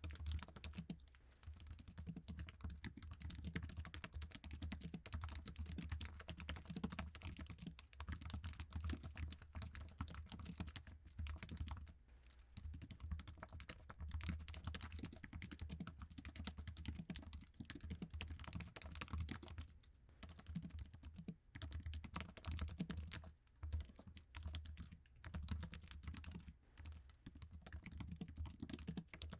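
Steady, fast typing on a basic Apple iMac keyboard, its low-travel keys clicking in quick runs, with a few brief pauses.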